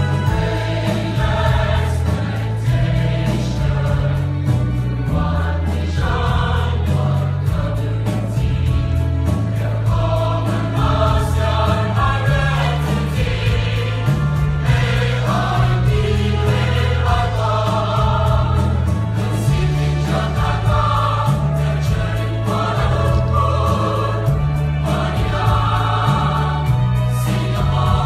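Choir singing, with a deep bass underneath that steps from note to note.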